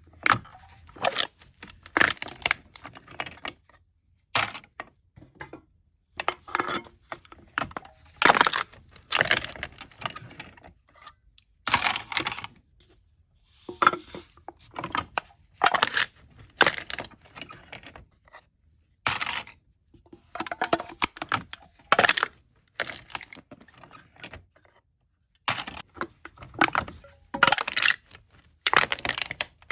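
Aluminium cans being crushed: crinkling, crackling crunches of thin metal in short bursts of a second or less, with brief pauses between.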